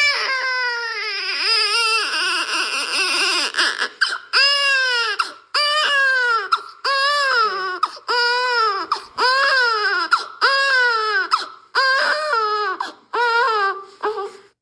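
Baby crying: a long wavering wail, then a run of about nine short rising-and-falling cries, roughly one a second, that cuts off abruptly near the end.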